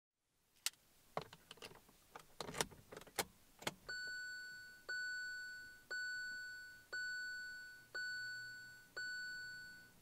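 A quick run of clicks and knocks, then the Hyundai i30's warning chime sounds six times, about once a second, each a clear tone that fades away, as the ignition is switched on.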